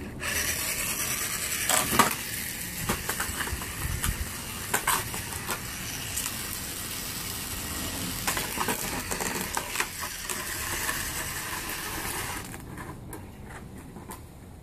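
Radio-controlled monster truck running over concrete: a steady rattling hiss from its drive and tyres with scattered clicks and knocks, stopping about twelve seconds in.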